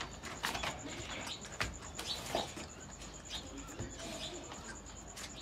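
Birds calling in the background, short high chirps and low cooing, with a few short knocks and scuffs scattered through.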